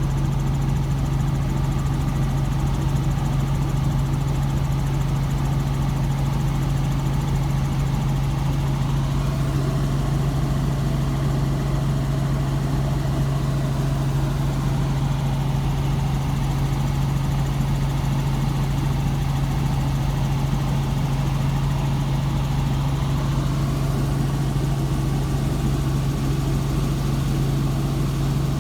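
A vehicle engine idling steadily, a constant low hum with no change in pitch or level.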